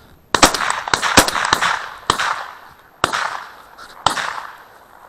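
Several shotgun shots fired in quick succession, about a second apart, each fading in a short echo.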